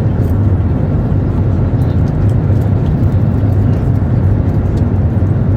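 Steady cabin noise of an Airbus A320neo-family airliner in flight: the even rumble and rush of the jet engines and airflow past the fuselage, heavy in the low end.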